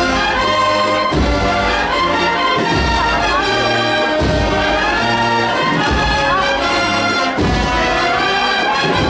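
A Spanish Holy Week agrupación musical, a band of cornets, trumpets, trombones and drums, playing a processional march. Sustained brass melody over a steady drum beat, with accents about every second and a half.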